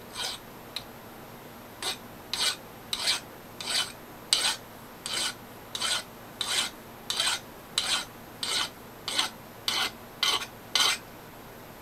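Hand file rasping across the steel edge of a homemade magnetic chuck, filing the edge off after milling. A steady rhythm of short push strokes, about one and a half a second, which stop about a second before the end.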